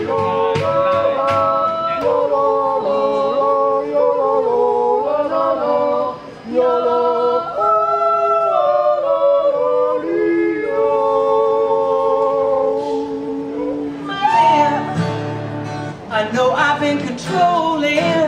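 Unaccompanied yodeling in long held notes that step between pitches. About fourteen seconds in it gives way to a woman singing to a strummed acoustic guitar.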